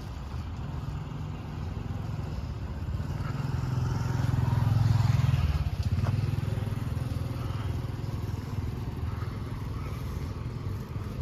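Road traffic: a low engine rumble that swells to its loudest about five seconds in as a motor vehicle passes close, then eases back.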